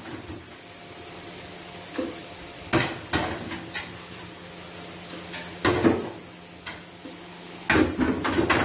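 Metal cooking pots clanking and knocking as they are handled, a string of separate sharp knocks with quick clusters of clanks near the end.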